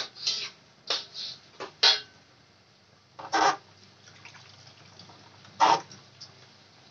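Metal spatula clinking and scraping against a metal wok while greens are stir-fried: about six quick ringing clinks in the first two seconds, then two longer, louder clatters about three and a half and five and a half seconds in. A pot of soup boils faintly underneath.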